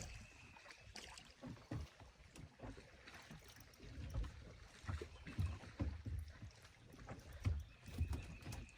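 Scattered low thumps and light knocks from movement in a small fishing boat, coming at irregular intervals over faint background noise.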